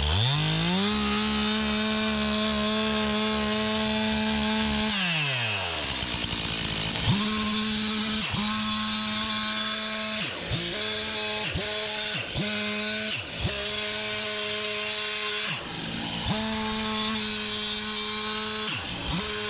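Gas chainsaw revving up to full throttle, holding for about five seconds, then dropping back. From about seven seconds in it runs at full speed again with several brief dips in engine speed as it cuts lengthwise along a log in freehand milling.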